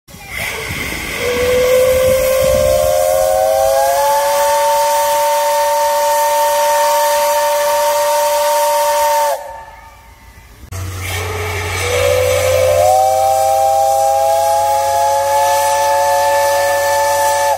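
Steam whistle of 8620-class steam locomotive No. 8630 blowing two long, loud blasts. Each blast is a chord of several tones that slides up in pitch as the whistle opens, then holds steady. A hiss of steam comes just before the first blast, which cuts off sharply before the second begins.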